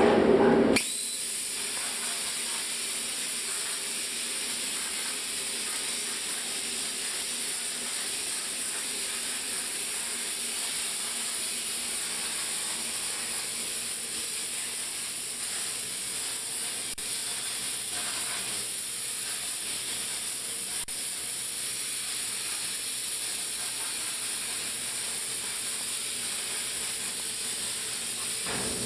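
CNC plasma cutting torch hissing steadily as it cuts; a louder, lower machine hum stops about a second in.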